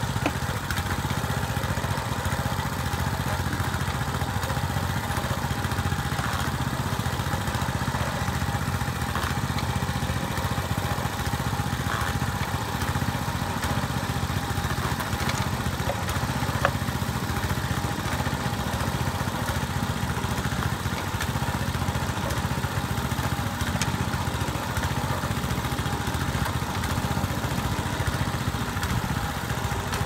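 Small engine driving a mini baler, running steadily as it presses cedar shavings into bales, with a few faint clicks.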